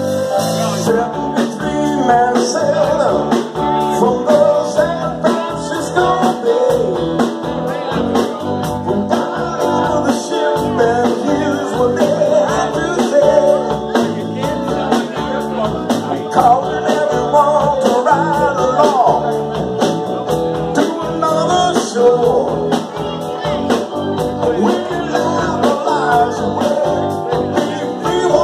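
Live band playing amplified through a PA: a male lead singer over electric guitars, bass, drum kit and keyboards, with a steady drum beat.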